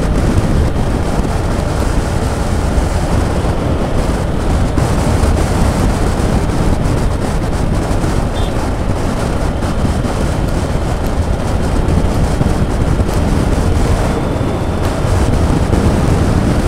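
Wind rushing over the microphone of a moving motorcycle: a loud, steady, even roar that drowns out the engine.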